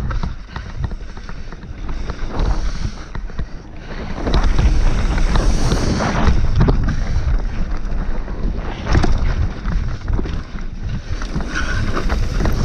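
Wind buffeting the on-bike camera's microphone during a fast mountain-bike descent, with the tyres on the dirt trail and the bike rattling and knocking over rough ground. The rumble grows louder about four seconds in.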